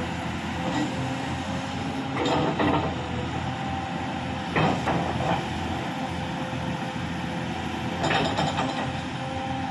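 LiuGong 939E crawler excavator's diesel engine and hydraulics running under load as the boom, arm and bucket move, with a steady whine. There are three short, louder surges of noise, about two, four and a half, and eight seconds in.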